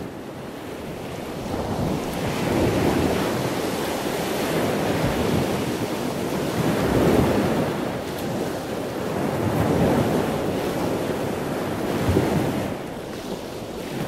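Ocean waves washing in, a rushing surf sound that swells and eases every few seconds.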